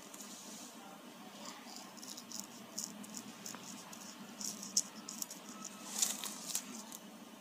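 Small, close handling noises from colouring on a picture: an irregular run of light clicks, taps and scratches, busiest in the second half.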